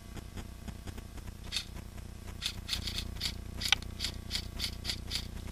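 Airsoft rifle fired in quick single shots, a sharp click about three to four times a second from about a second and a half in, with one louder crack partway through.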